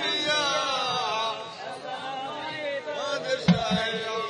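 A man singing a drawn-out line of an Urdu devotional song in praise of Khwaja Gharib Nawaz, the notes held long and wavering in pitch. A short thump about three and a half seconds in.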